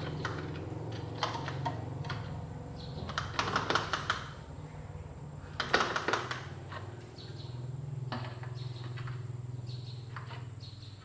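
Light clicking and clattering, in two short bursts about three and six seconds in, over a steady low hum.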